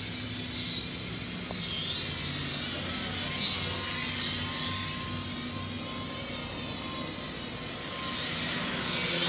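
Rage Stinger 240 quadcopter in flight, its motors and propellers whining high. The pitch rises and falls continually as the throttle changes while it zips around.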